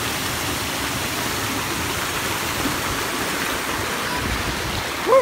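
Alamere Falls' waterfall pouring into its rock pool, a steady, even rush of falling and churning water. Right at the end a brief rising-and-falling voice cuts in over it.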